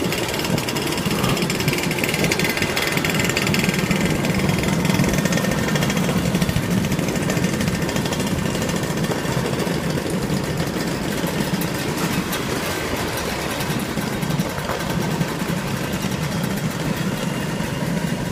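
Many vintage scooter engines running together as a convoy rides along, a steady, dense engine drone.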